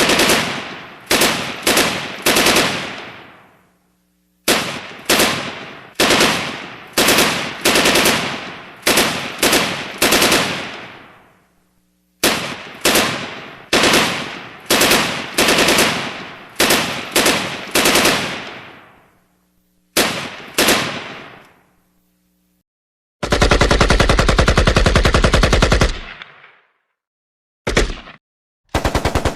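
Gunshot sound effects: single shots in quick groups of two to four, each with a long echoing tail. Late on come a continuous burst of rapid automatic fire lasting about three seconds and two shorter rapid bursts.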